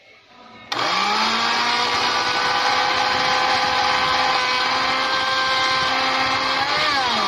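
Electric blender grinding sliced bread into breadcrumbs: the motor switches on about a second in and runs at a steady pitch, then winds down with a falling pitch near the end.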